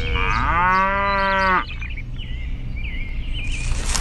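A cow mooing once: one long call that rises, holds steady and stops abruptly about one and a half seconds in. Birds chirp briefly afterwards, and there is a short hiss near the end.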